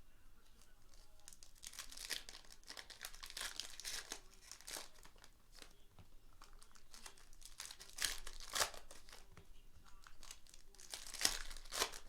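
Plastic wrapping on basketball trading-card boxes and packs being torn open and crumpled by hand: repeated crinkling and ripping, with the loudest rips about eight seconds in and again near the end.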